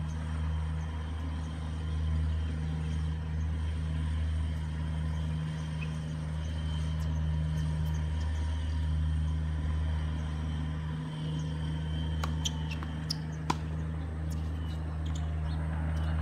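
Steady low outdoor rumble, with a few short sharp clicks about twelve to thirteen and a half seconds in.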